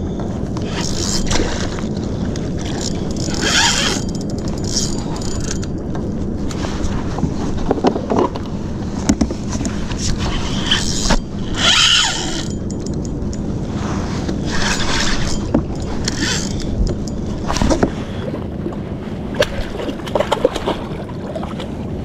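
Wind rumbling on the microphone and water lapping against a plastic sit-on-top kayak at sea, with short hissing bursts every few seconds.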